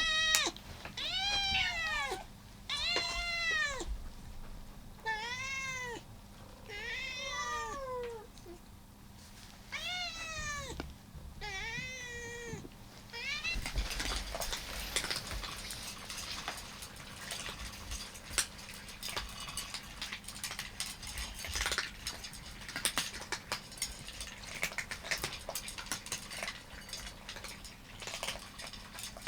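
A domestic cat meowing repeatedly, about seven calls that each rise and fall, spaced a second and a half to two seconds apart. About halfway through the meowing stops and gives way to a rapid, irregular crunching and clicking of cats munching their food.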